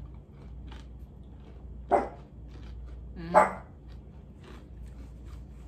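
A dog barking twice, short single barks about a second and a half apart.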